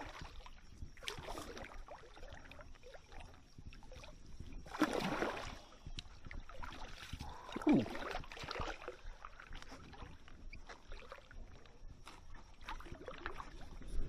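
Inflatable paddle board and paddle working in shallow creek water: irregular splashes and scrapes, with two short falling squeaks about five and eight seconds in.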